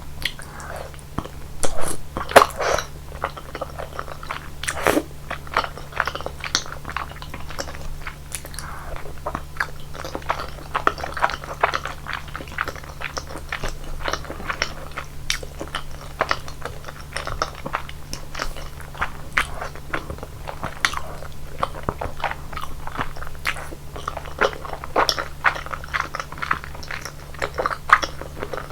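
Close-miked mouth sounds of a person eating rosé tteokbokki: chewy rice cakes in a thick creamy sauce, bitten and chewed with many small wet clicks and smacks. The loudest bites come about two seconds in.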